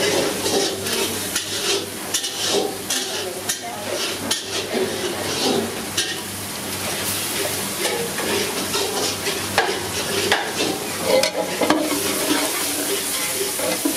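Metal ladle stirring and scraping food in a large pan of hot oil, with a steady sizzle and repeated short scrapes and clanks of the ladle against the pan.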